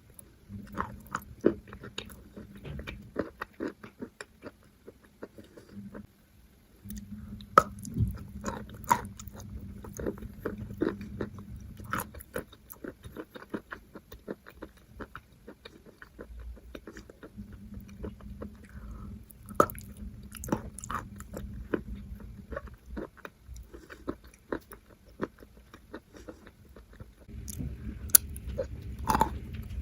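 Close-miked biting and chewing of edible Maria chalk: many sharp, irregular crunches and crackles as pieces are bitten off and ground between the teeth.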